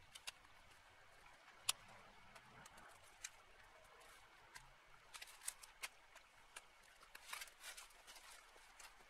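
Dry brush being handled and cut: scattered sharp cracks and snaps of dead twigs and branches, with a louder single snap about two seconds in and quick clusters of cracks later on.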